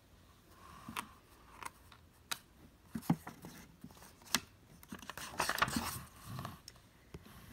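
Pages of a hardcover picture book being handled and turned: a few light clicks and taps, then a papery rustle as a page turns about five and a half seconds in.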